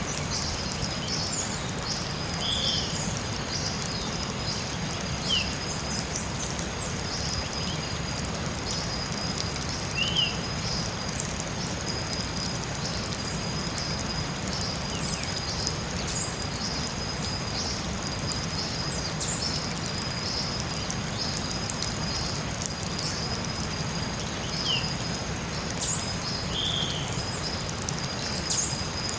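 Tropical forest ambience: a steady rushing hiss under a continuous high-pitched trill, with short bird calls breaking in every few seconds.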